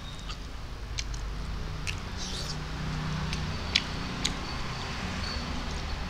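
Close mouth sounds of a man eating rice and fish with his fingers: chewing with a few sharp smacking clicks scattered through, over a steady low hum.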